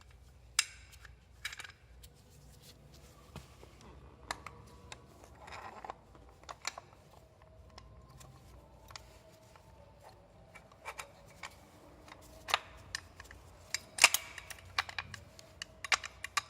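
Scattered metallic clicks and light knocks as a new clutch release bearing is fitted onto the release fork of a Honda B18 gearbox, with a sharp click about half a second in and a busier run of clicks near the end.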